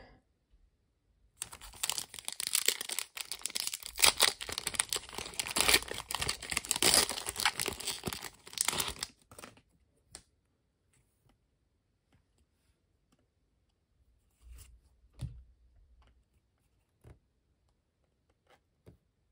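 A trading-card flow pack's plastic wrapper being torn open and crinkled for several seconds, followed by a few soft taps and clicks as the cards are handled.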